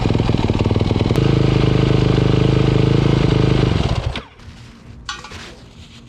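A Yamaha YZ450F's 450cc single-cylinder four-stroke engine running steadily with its fresh spark plug, then shut off about four seconds in.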